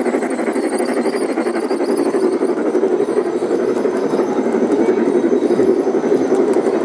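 Wheels of a long G-scale model freight train of hopper cars rolling steadily over the track as the cars pass close by, a continuous dense rolling noise.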